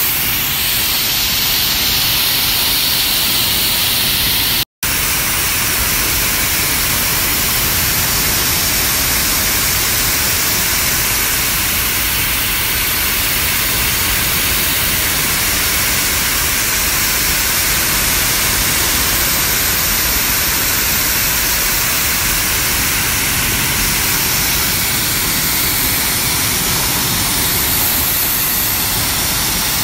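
Hand-held dog grooming blower running steadily at full power, its air blown over a standard poodle's dried coat to check for mats. The sound drops out for an instant about five seconds in.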